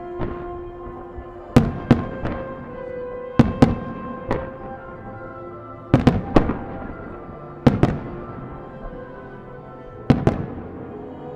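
Aerial fireworks shells bursting: a string of sharp bangs every second or two, some in quick pairs, over show music with long held notes.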